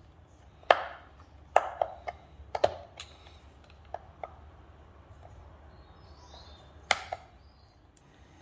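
Irregular sharp taps and clicks of small hard parts and hand tools being handled on a workbench during instrument-cluster assembly: about a dozen knocks, the loudest just under a second in, a quick cluster soon after and another pair near the end.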